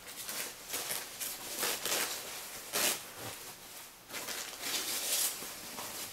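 Rustling and crinkling of thin foam packing sheets as they are lifted and pulled back out of a cardboard box. The rustles come in uneven bursts, with one sharper rustle a little before the middle.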